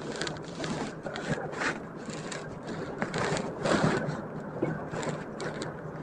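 Irregular scraping and rustling of people moving about in a truck cab, over the steady low idle of the Hino Profia's diesel engine.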